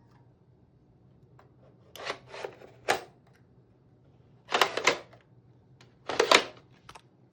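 Drive trays clicking and clattering into the front drive bays of a Dell PowerEdge R420 rack server: four short bursts of sharp plastic-and-metal clicks a second or two apart.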